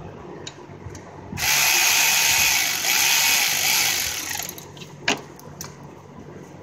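Cordless electric ratchet running in two bursts of about a second and a half each, spinning out a bolt in an engine bay. A sharp metallic click about five seconds in.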